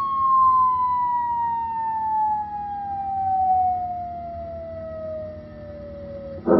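A sound-effect rubbish bin playing a long falling whistle, a single tone sliding slowly and steadily down in pitch, as if the dropped litter were falling down a very deep shaft. The whistle cuts off near the end.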